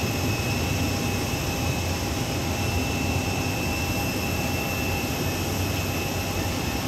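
Steady jet turbine whine with a high fixed tone over a low rumble from an airliner at the gate.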